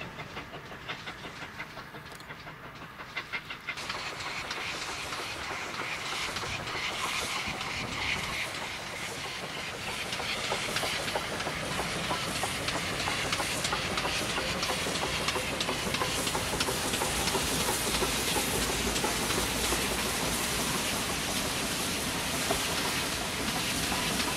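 A train of coaches passing with its wheels clicking over the rail joints. About four seconds in it gives way to a steam locomotive hauling coaches: steam hiss and exhaust over the wheels rumbling and clicking, growing louder as the train goes by.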